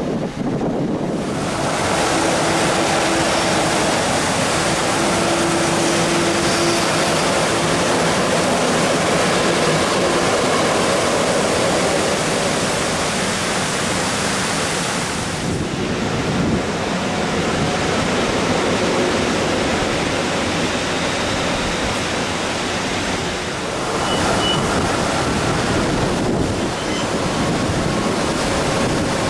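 Steady rushing of a whitewater mountain stream tumbling over rocks.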